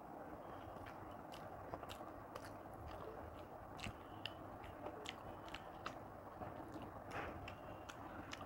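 Soft eating sounds: chewing with small wet mouth clicks, and fingers mixing rice on a plate. Scattered small clicks come at irregular moments.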